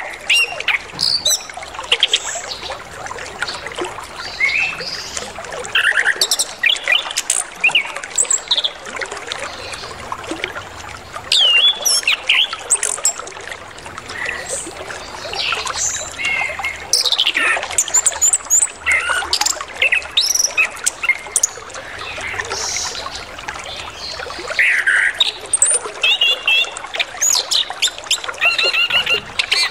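Chestnut-capped thrush (anis kembang) singing a varied, full song of whistles, slurred glides and trills, over the steady trickle of flowing water.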